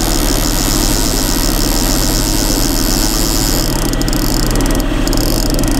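Boat engine running steadily at trolling speed, with the high whir of a manual downrigger's spool paying out cable as its weight is lowered about ten feet. The whir stops near the end.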